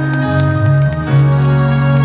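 Live band backing music from a slow ballad: sustained instrumental chords with a steady bass, changing chord about a second in, with no singing.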